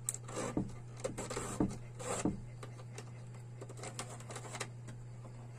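Insulated wires being fed through corrugated plastic conduit into a plastic switch box: irregular scraping and rustling, busiest in the first two seconds and then sparser, over a steady low hum.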